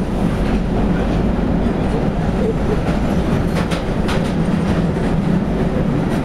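London Underground train running, heard from inside the carriage: a loud, steady rumble, with a few brief sharp clicks a little past halfway.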